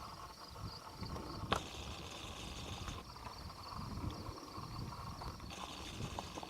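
Hooves of horses and Herefords walking on a dirt trail, irregular low thuds with a sharp click about a second and a half in. A steady high insect buzz comes in and out over it.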